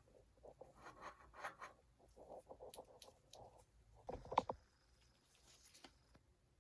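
Faint clicks, taps and scraping of hand tools and bicycle parts being handled during bottom-bracket work, with one sharper knock about four seconds in.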